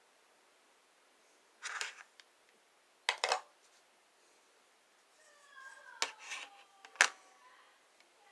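Small hard objects handled at close range: a short scrape, then sharp clicks and snaps, with a faint squeak just before the loudest click near the end.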